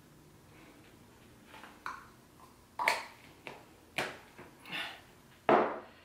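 Light knocks and clicks of small objects being handled and set down on a desk, about half a dozen spaced over a few seconds, the last one the loudest.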